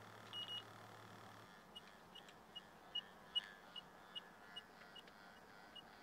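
Infrared electronic refrigerant leak detector in high-sensitivity mode beeping faintly: one short high beep about half a second in, then a steady series of short high beeps about two and a half a second while its probe samples the air.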